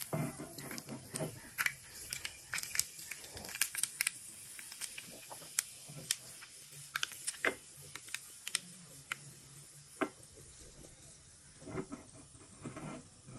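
Fenugreek and turmeric frying in hot oil in a small iron pan: a steady sizzle with many sharp, irregular crackles and pops from the spices, thinning out in the second half.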